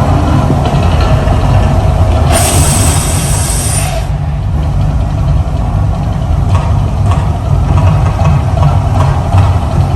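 Mirage volcano show erupting: a loud, continuous deep rumble from its eruption sound effects, with a hissing burst about two seconds in that lasts under two seconds.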